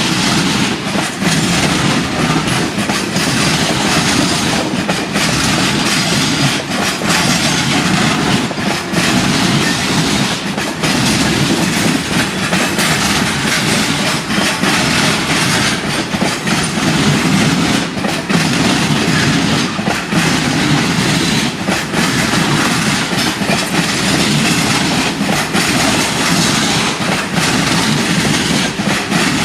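Railway wagons rolling on the track: a steady loud rumble with irregular clicks from the wheels passing over rail joints.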